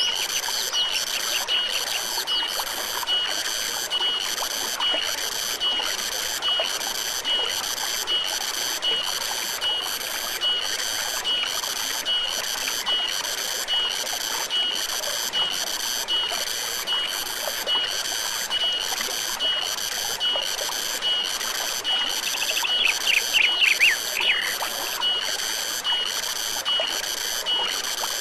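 Forest stream running steadily, with a high-pitched animal chirp pulsing evenly about one and a half times a second throughout. Near the end a bird gives a quick run of falling notes.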